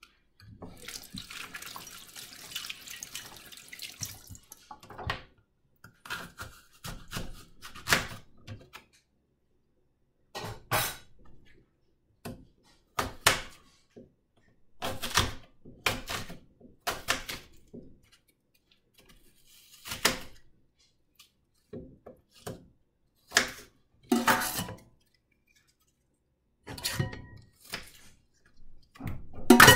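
Tap water runs over an apple being rubbed clean and stops about four seconds in. Then comes an irregular series of sharp knocks and crunches as a kitchen knife cuts the green apple into pieces, spaced a second or two apart.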